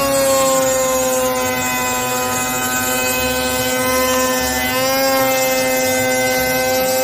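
Table-mounted router running a drawer-pull (finger-grip) bit as it cuts a recess into the edge of a pine board: a steady motor whine with a slight shift in pitch about five seconds in.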